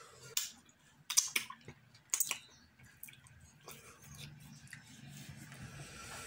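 A person eating fufu with slimy okro and ogbono soup by hand: wet chewing, smacking and squishing. There are a few sharp wet smacks in the first two and a half seconds, then softer chewing.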